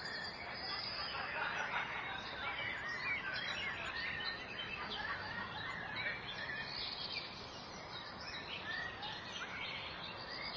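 Many birds chirping at once, a dense, busy chorus of short overlapping calls over a steady background hiss.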